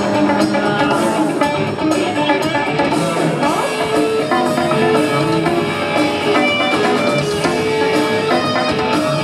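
Live rock band playing loudly: electric bass, electric guitar and drum kit, without vocals.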